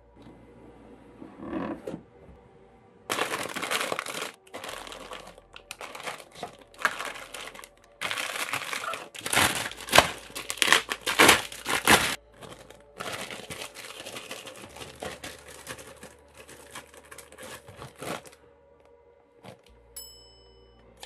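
Thin clear plastic bags around model-kit runners crinkling and tearing as they are pulled open and handled, in repeated bursts of rustle.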